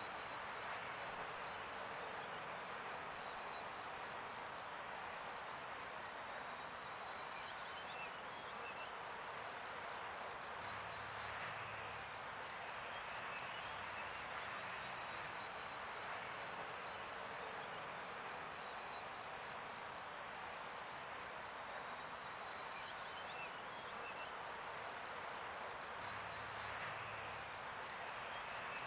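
A continuous high-pitched trill that pulses rapidly and evenly, as of crickets, over a soft steady hiss.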